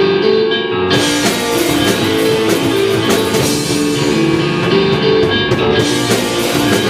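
Live rock band playing the instrumental intro of a song: a repeating guitar riff, with drums and cymbals coming in about a second in.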